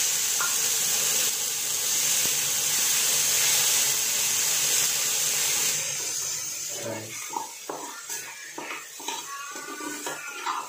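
Water poured into a very hot non-stick pan of charred rice, hissing loudly as it flashes into steam; this is the quenching of the burnt rice to make chanthu paste. The hiss dies down about six seconds in, and a voice follows.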